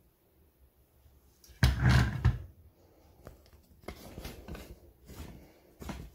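A heavy thump about a second and a half in, followed by several lighter knocks and clicks.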